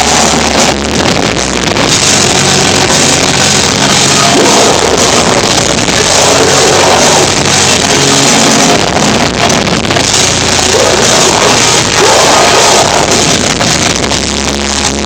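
Live melodic hardcore band playing loud, continuous music, recorded so loud that it is heavily distorted and overloaded.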